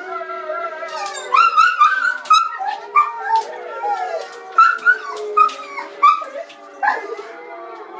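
A chorus of wolves howling from computer speakers, many long gliding howls overlapping. A vizsla whines and gives short sharp yips at the screen between them.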